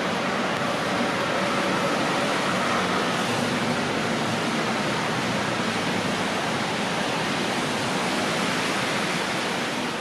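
Steady, even rushing noise of outdoor ambience, with faint hum-like tones in the first few seconds.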